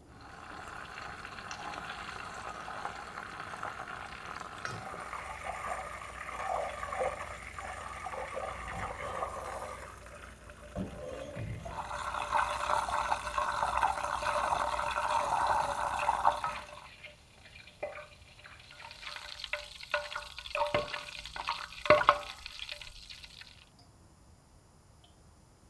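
Butter simmering in an enamel saucepan, a steady sizzle with a quieter hiss before it. Then a spoon stirring and clinking against the pan, the loudest clink near the end.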